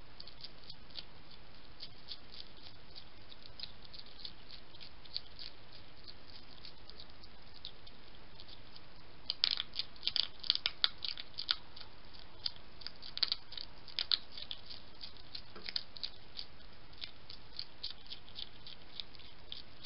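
European hedgehog chewing food from a bowl: a fast, uneven run of small sharp clicks and crunches. They come thickest and loudest from about halfway through.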